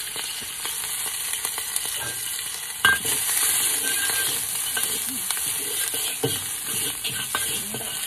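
Garlic and fresh bird's eye chilies sizzling in hot oil in a wok, stirred with a metal ladle that scrapes and knocks against the pan; one sharp knock about three seconds in is the loudest sound.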